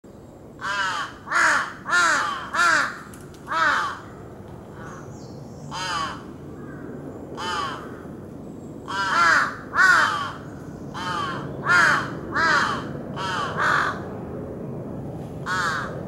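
Large-billed crows (jungle crows), a parent and its fledgling, cawing: about fifteen short calls, each rising and falling in pitch, some in quick runs of two to four, with gaps of a second or two between runs.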